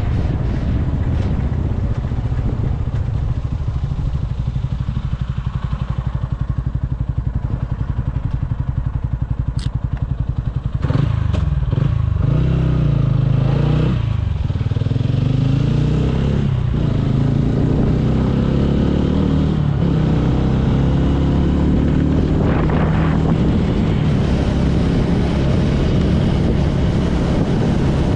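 TVS Ronin motorcycle's single-cylinder engine running under way. Steady at first, it gets louder about eleven seconds in, with its pitch rising and falling for several seconds before settling into a steady run again.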